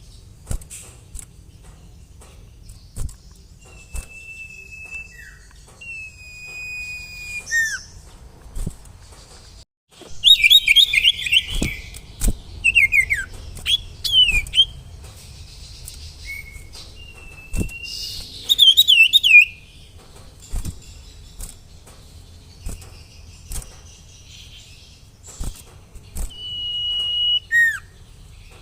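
Sirtu songbird singing: clear whistled notes and downward glides, broken by loud bursts of fast chattering trills about ten and eighteen seconds in.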